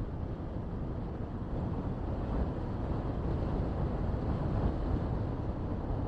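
Steady low rumble of a car driving on a paved road, with some wind noise on the microphone. It gets slightly louder about a second and a half in.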